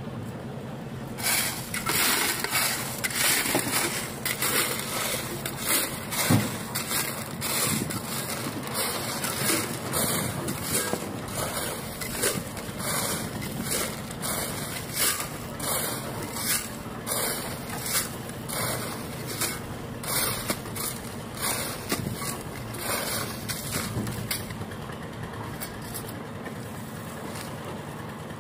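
Steel shovel digging into a pile of crushed stone and tipping it into a metal wheelbarrow: repeated scraping and crunching with gravel rattling into the pan, stroke after stroke, stopping near the end.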